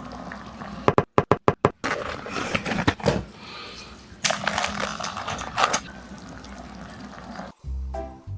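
Liquid sounds, like pouring or bubbling, with a quick run of about six sharp clicks a second in; music with a beat starts near the end.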